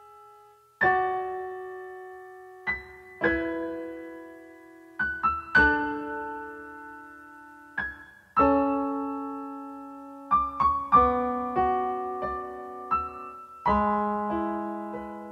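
Slow, gentle piano music: single notes and soft chords struck every second or two, each left to ring and fade away.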